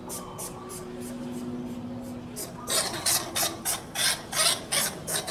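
Rapid, repeated rasping hisses from a cat-and-bandicoot-rat stand-off, about three to four a second. They grow much louder and coarser a little past halfway. It is the snake-like threat hissing that drew the girl outside.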